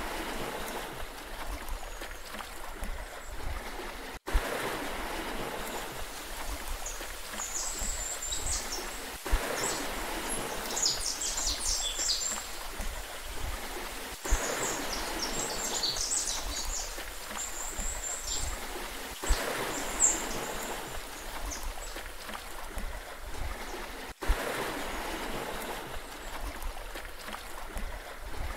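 Sea water washing and lapping, swelling in a repeating cycle about every five seconds, with a sharp click at each repeat. Brief high chirps come through in the middle.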